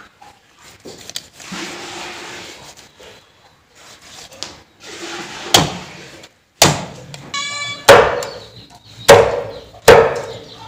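Knife cutting through a boiled whole chicken on a thick wooden chopping board, then a cleaver chopping down onto the board: five heavy strokes about a second apart from about halfway.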